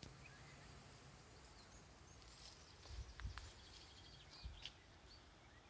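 Near silence: faint outdoor ambience with a few distant bird chirps scattered through, and a couple of soft knocks a little past the middle.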